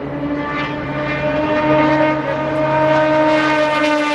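Race car engine at high revs passing at speed, its pitch sliding down near the end as it goes by.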